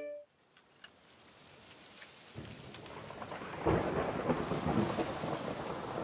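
Wind gusting over the microphone, fading up from near silence and buffeting louder in uneven swells from about two seconds in, strongest around the fourth second.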